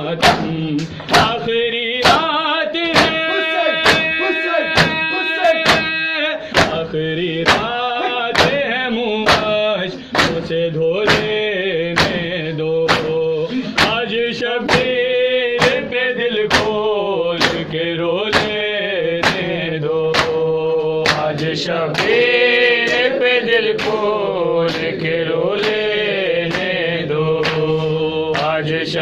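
Men chanting a noha, a Shia lament, in long held and wavering lines, over regular chest-beating (matam) slaps about two a second.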